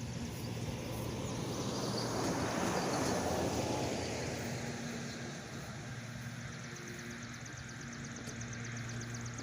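A motor vehicle passing: a broad engine-and-road noise swells to a peak about three seconds in and then slowly fades, over a steady low hum. A fast, high, pulsing insect-like chirr comes in near the end.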